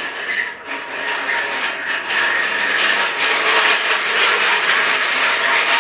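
A ratcheting mechanism clicking rapidly and continuously, a quick run of metallic ratchet clicks.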